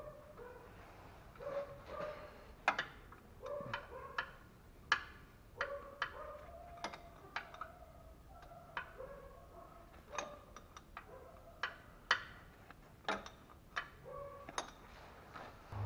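Sharp, irregular metallic clicks and clinks of a curved 12 mm box wrench working the transfer case filler plug on a Nissan Murano. Between the clicks an animal makes short whining calls again and again.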